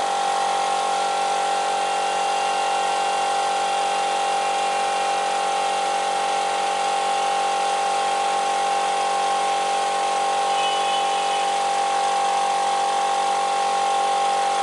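Steady machine hum: a constant mid-pitched whine with several fainter steady tones above it, holding an even level throughout.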